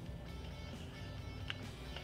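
Background music with guitar, and a single short click about one and a half seconds in.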